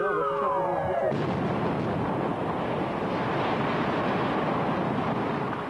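Explosive demolition of nine-storey concrete-panel apartment blocks. About a second in the blast sets off a long, dense rumble of the buildings collapsing, which holds for about four seconds and then fades. Before it, a tone glides down in pitch.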